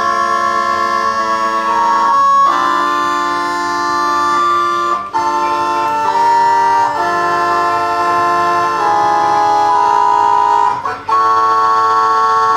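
Electronic home organ playing slow, sustained chords and a held melody, the notes changing every second or two, with two brief breaks between chords about five and eleven seconds in.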